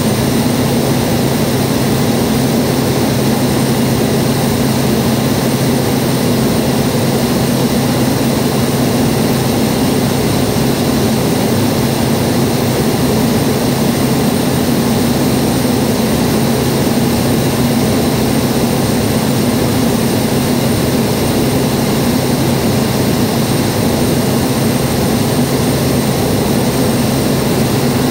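Quest Kodiak 100's single Pratt & Whitney PT6A turboprop engine and propeller, heard from inside the cabin in flight: a loud, steady drone with a thin high whine above it that holds constant throughout.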